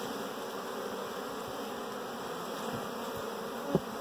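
Honey bees buzzing at a busy hive entrance: a steady hum of many foragers flying in and out with pollen. A brief louder blip comes near the end.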